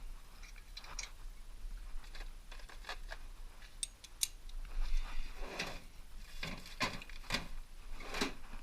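Metal hand tools clinking and clicking as sockets are sorted and one is fitted to the ratchet. The sharper, louder clinks come in the second half.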